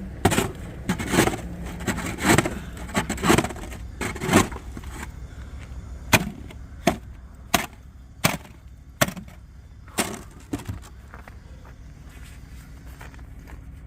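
A tool chipping at frozen ice: a run of sharp strikes, irregular at first, then a steady stroke about every three quarters of a second, stopping about eleven seconds in.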